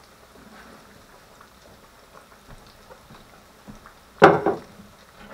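Battered fish pieces frying in an electric deep fryer's hot oil: a quiet, steady bubbling and sizzling, broken by one sudden loud knock about four seconds in.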